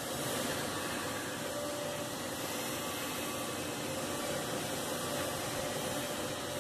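A steady rush of moving air, like a fan or blower, with a faint steady hum under it.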